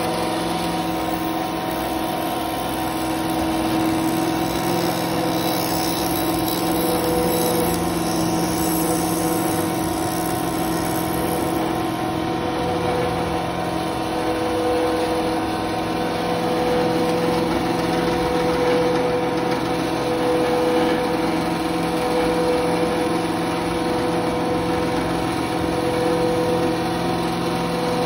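Small benchtop bandsaw running steadily, its blade cutting through an orange, with a constant motor hum.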